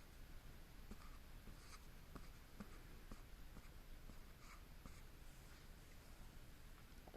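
Near silence: room tone with a low hum and faint, scattered small scratches and clicks.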